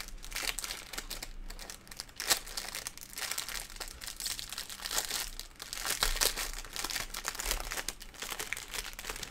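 A small clear plastic baggie of diamond painting drills being squeezed and worked between the fingers: continuous irregular crinkling of the plastic and the drills shifting inside, with one sharper crackle about two seconds in.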